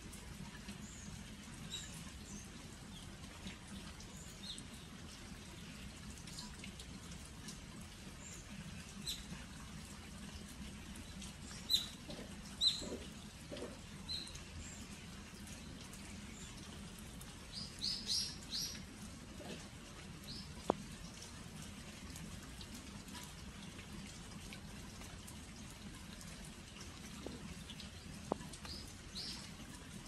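Light autumn rain falling steadily on earthenware sauce jars (onggi), a soft even hiss, with small birds giving short high chirps here and there, bunched about a third of the way in, around the middle and near the end. A couple of sharp single ticks stand out, about two thirds of the way in and near the end.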